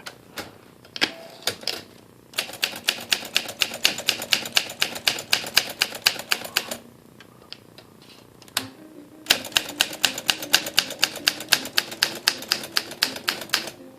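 1958 Olympia SM3 manual typewriter clicking in two long, fast, even runs of about ten clicks a second, with a pause and a single click between them.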